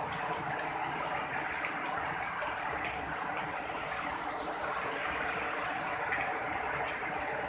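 Heavy rain falling steadily: an even rushing hiss, with a few faint sharp drip ticks now and then.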